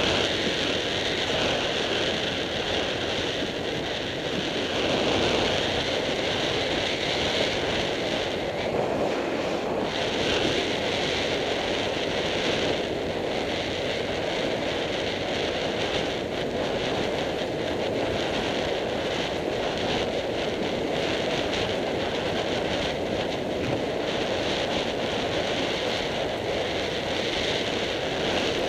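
Steady wind noise buffeting the microphone, mixed with the running noise of an off-road vehicle driving along a dirt track.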